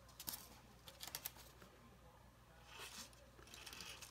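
Faint clicks and a soft scratchy rustle of fingers handling thin lamp wires, feeding them into a styrene tube set in foam scenery.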